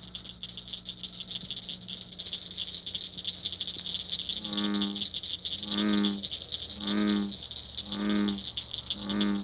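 Frogs calling: a steady, high, pulsing trill chorus, joined from about four and a half seconds in by a deeper croak repeated five times, about once a second.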